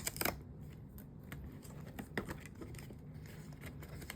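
A blind box's packaging being opened by hand: light crinkling, tearing and scattered sharp clicks of cardboard and plastic.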